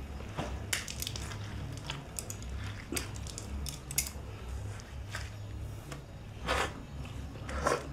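Someone eating: chewing, with light clicks of utensils against dishes, over a low steady hum.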